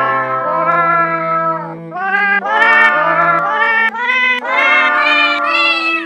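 Cat meows pitch-shifted into a sung melody, about eight notes of a half-second to a second and a half each, over held low accompanying notes.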